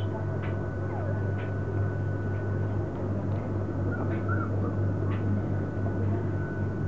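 A few faint, short squeaks from four-week-old Border Collie puppies over a steady low hum, with scattered light clicks.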